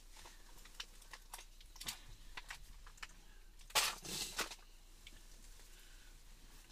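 Faint handling noises from ice-fishing tackle and clothing: a few light scattered clicks, with a couple of brief rustles about four seconds in.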